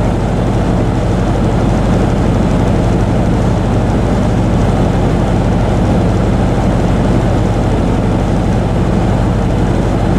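Vehicle engine running steadily with a low drone.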